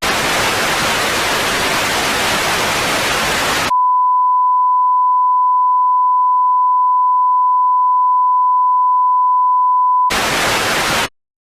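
TV-static hiss for about four seconds, cut off abruptly by a steady pure beep like a broadcast test tone that holds for about six seconds. A second of static follows before the sound cuts out.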